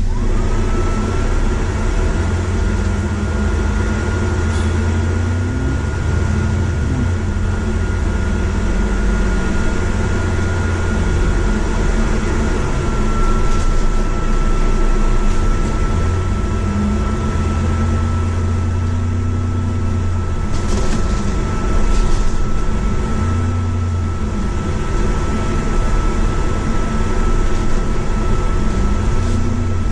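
Bus engine and drivetrain heard from inside the bus as it drives, the engine note rising and falling several times with the gear changes under a steady high whine. A couple of brief rattles come about two-thirds of the way through.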